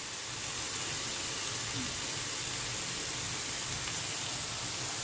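Shredded cabbage and carrot sizzling in oil in a frying pan, a steady even hiss.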